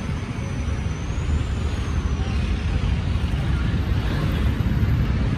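Steady low rumble of road traffic on a busy street: engines of passing vehicles, growing slightly louder toward the end.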